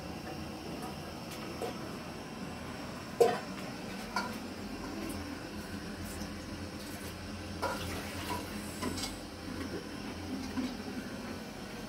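Clinks of a small metal pot on the floor and water poured into it from a plastic jug, with a few sharp knocks, the loudest about three seconds in.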